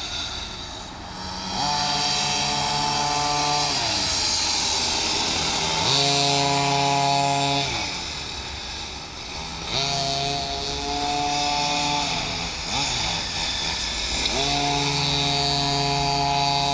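Two pocket bikes' small two-stroke engines racing, revving up to a high pitch, holding it, then dropping off again, four times over as they accelerate and ease off for corners.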